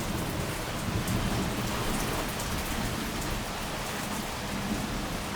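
Heavy rain pouring steadily in a thunderstorm downpour.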